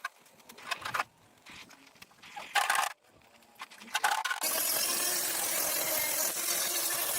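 Small metal clicks and knocks, then about four seconds in a loud, steady abrasive scraping of metalwork starts and keeps going.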